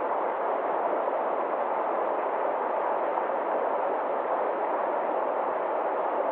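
Stream water rushing over a small rocky cascade: a steady, even rush with no change.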